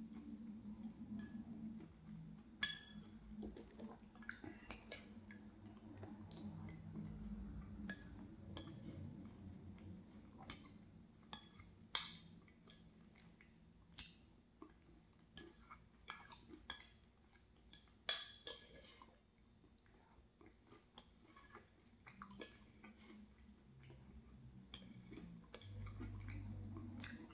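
Light clinks and scrapes of a spoon on a glass bowl as the last of a soft applesauce dessert is scraped out and eaten, as sharp separate ticks scattered throughout.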